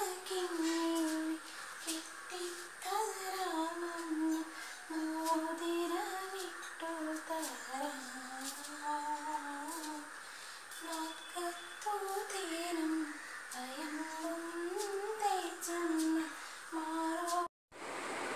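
A woman humming a slow lullaby without words, in long wavering phrases with short pauses for breath, to lull a toddler to sleep. It cuts off abruptly near the end.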